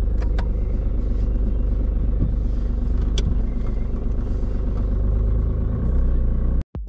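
Car engine idling, a steady low rumble heard from inside the cabin, with a few light clicks; it cuts off suddenly near the end.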